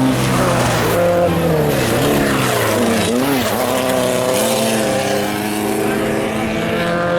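Off-road race vehicle's engine running hard, its pitch rising and falling several times as it revs through gear changes, with a deep dip about three seconds in.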